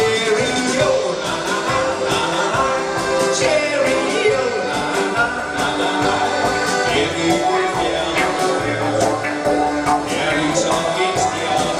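Live dance band playing with a steady drum beat: electric guitar, drum kit and accordion.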